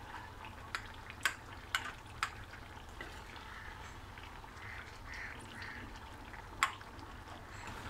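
Metal ladle knocking against a karahi while pressing and mashing tomatoes in a simmering chicken curry: four sharp knocks about half a second apart, then soft wet squelching of the sauce, and one more knock near the end.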